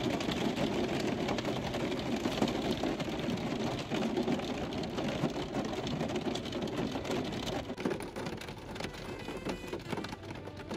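Heavy rain pelting a car's roof and windshield, heard from inside the car as a dense, steady patter of countless drops.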